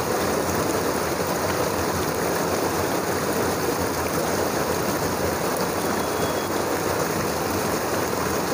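Hill stream rushing steadily, one even, unbroken wash of water noise.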